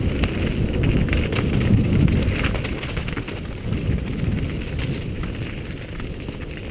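Wind buffeting the microphone of a helmet-mounted camera on a fast mountain-bike descent, over the rumble of tyres on a dirt and leaf-litter trail. Short clicks and rattles from the bike come through throughout.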